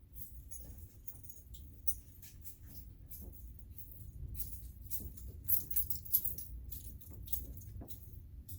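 Small hard parts clicking and jingling in quick, irregular bursts as they are handled, over a steady low hum.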